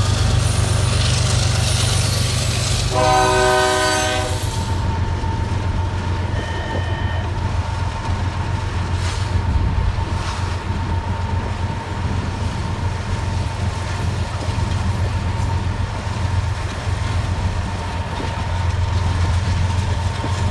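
Diesel freight locomotives rumbling past, with a short blast of the locomotive's multi-note horn about three seconds in. After that the sound turns muffled: a steady low rumble of road noise heard from inside a moving car, with the train still faintly audible.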